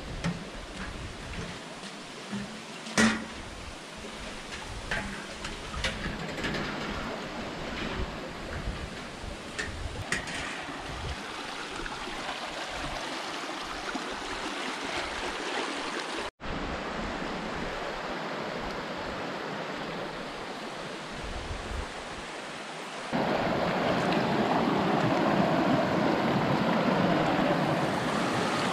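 Steady rush of flowing water, with a few sharp knocks in the first ten seconds, the loudest about three seconds in. About 23 seconds in the rush suddenly becomes louder and fuller.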